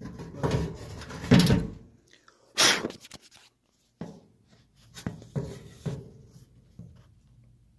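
Handling noise: irregular knocks and rubbing as a phone is moved about inside a dryer's cabinet. The loudest are a cluster about one to one and a half seconds in and a sharp knock near three seconds, with smaller taps after.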